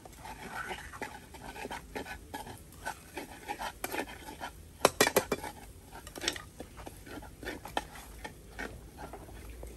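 Metal spatula scraping and clinking against a frying pan as a sauce is stirred, with a quick run of sharp knocks about five seconds in.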